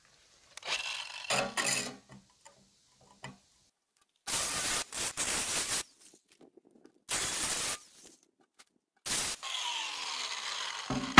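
Cordless power cutter sawing through the steel wall of an emptied 100 lb propane tank, in four short bursts with near-silent gaps. In the last burst the motor winds down with a falling whine.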